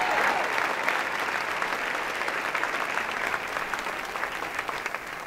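Congregation applauding, the clapping gradually dying away.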